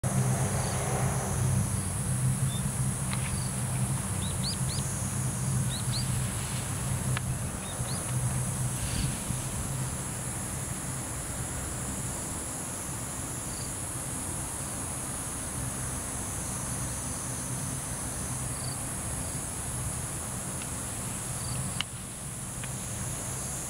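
A steady high-pitched chorus of insects, with a low steady hum beneath it. A few short chirps in the first half, and one sharp click near the end.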